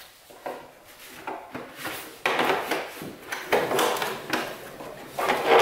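Metal hand tools clattering and scraping as they are picked up and moved about on a wooden chair seat: a run of irregular knocks and rattles, busiest in the second half.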